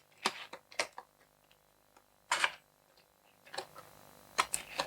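Scattered small clicks and taps of a tool prying at the keyboard ribbon-cable connector latch inside a Panasonic Toughbook CF-19 laptop. About eight light clicks, the loudest about two and a half seconds in.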